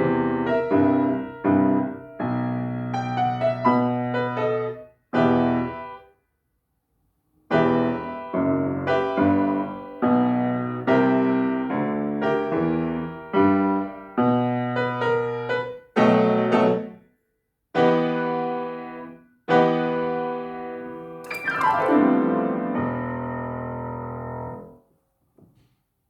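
Piano playing a blues piece, chords struck and left to ring, with a short pause partway through. Near the end a downward glissando runs into a final held chord that fades away.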